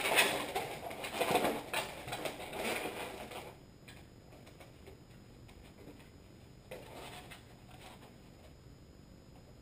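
Latex twisting balloons squeaking and rubbing against each other as they are twisted into a balloon animal, for about the first three and a half seconds, then much quieter.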